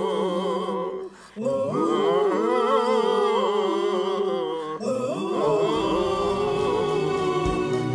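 Voices humming a slow, wordless tune with no accompaniment. They break off briefly about a second in.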